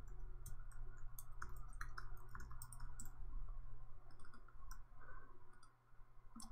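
Computer keyboard typing: quick, irregular key clicks with a short lull near the end, over a low steady hum.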